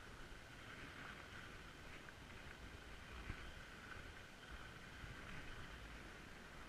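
Faint, steady hiss of skis gliding over groomed corduroy snow while being towed uphill by a button lift, with a low rumble underneath and a small tick about three seconds in.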